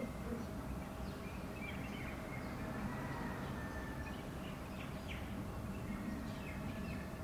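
Outdoor ambience: a steady low rumble with scattered faint bird chirps.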